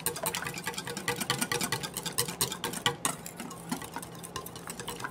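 Wire whisk beating heavy cream and cocoa powder in a stainless steel bowl: a fast, even run of metallic clicks as the wires strike the bowl, over a faint steady hum.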